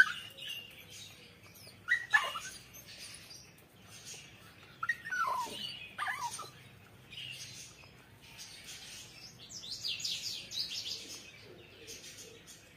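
A puppy yelping during play: about four short cries that drop sharply in pitch across the first six seconds, then a run of higher, quicker squeaks near the end.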